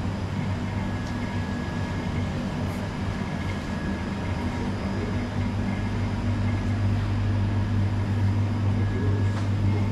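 A machine running with a steady low hum over a wash of background noise, growing slightly louder in the second half.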